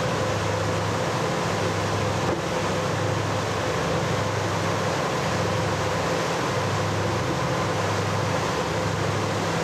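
A tour boat's engine running steadily: a low hum with a faint steady higher whine, over a haze of wind and rushing water.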